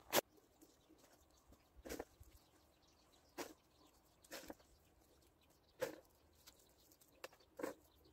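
Short, faint scuffs in dry, stony garden soil, roughly one every second or so, as garlic cloves are pushed into the ground by hand and covered over, one after another along a row. The sharpest scuff comes right at the start.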